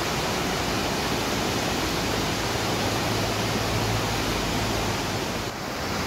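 Waterfall rushing: a steady, even wash of falling water, dipping briefly near the end.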